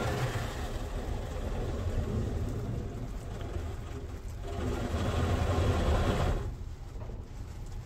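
High-pressure water jets of a touchless PDQ ProTouch Tandem car wash spraying against the car, heard from inside the cabin as a steady hiss over a low rumble. The spray grows louder about four and a half seconds in, then drops off sharply about six and a half seconds in.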